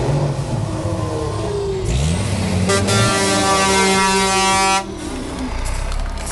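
Iveco Trakker Dakar rally truck's diesel engine running and revving up, then an air horn sounding for about two seconds and cutting off suddenly while the engine runs on.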